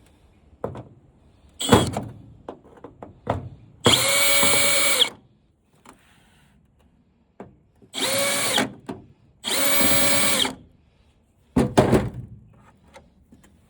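Electric drill-driver spinning in three short runs of about a second each, backing screws out of a flat-screen TV's housing, with handling knocks and clicks between the runs.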